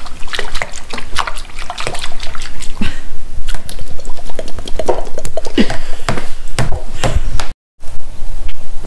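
A metal spoon stirred and splashed in a plastic bowl of soapy water, with irregular sloshes and clicks.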